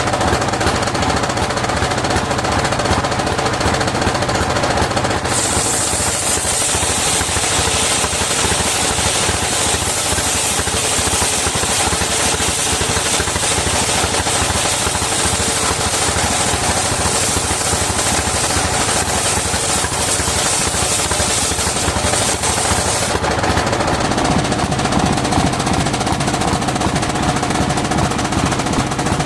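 Engine-driven circular saw running with the engine's rapid, even firing beat throughout. From about five seconds in until about 23 seconds a high hiss rises over it, the blade cutting through wood, then drops away.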